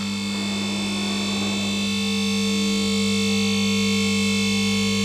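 Electric motor and hydraulic pump of a two-post car hoist's power unit running with a steady hum, pumping hydraulic oil to the lift columns to raise the arms.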